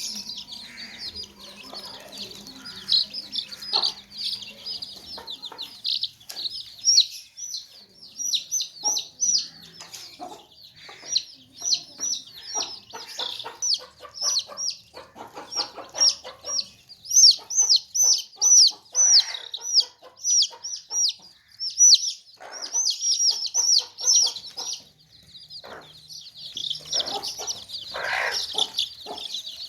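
A group of baby chicks peeping without pause: many high, short, falling chirps overlapping one another. Lower clucks from chickens come in now and then, loudest near the end.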